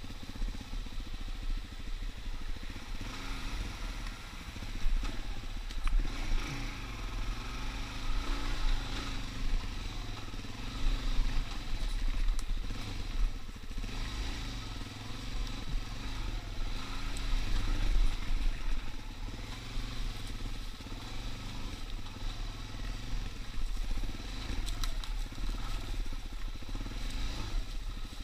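Off-road vehicle engine running while being ridden, its pitch rising and falling as the throttle changes, over a low fluctuating rumble of wind on the microphone.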